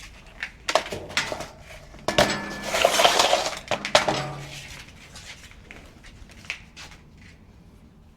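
Wires being pulled through harness sleeving by hand: rustling and scraping with sharp clicks and clinks, loudest from about two to four seconds in, then dying away.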